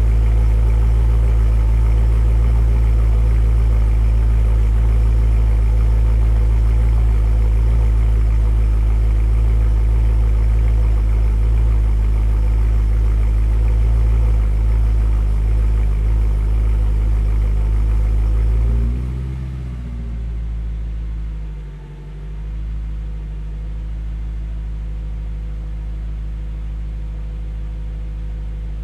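BMW E92 M3's 4.0-litre V8 idling after a cold start through a Borla ATAK exhaust fitted with venturis, a steady deep engine note. About two-thirds of the way through the sound drops suddenly to a quieter, lower idle, with a brief dip a few seconds later.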